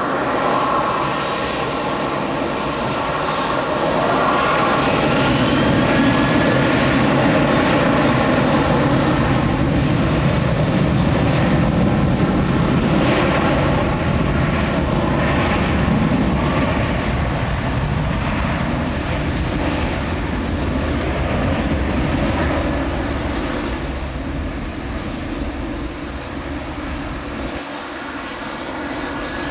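Sterling Airlines Boeing 737-700's CFM56-7B jet engines running loud as the airliner passes. A high whine rises in pitch over the first few seconds, the sound is loudest about six to ten seconds in, and it fades slowly toward the end.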